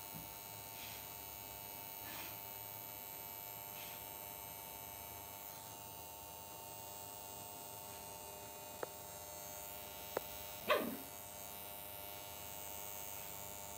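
Lhasa Apso puppy giving one short yelp about eleven seconds in, over a steady electrical hum, with a few faint clicks before it.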